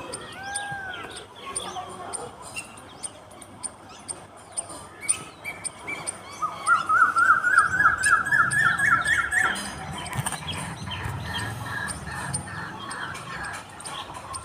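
Birds calling: a short two-note call near the start, then in the middle a rapid run of notes climbing in pitch for about three seconds, with a low rumble under it.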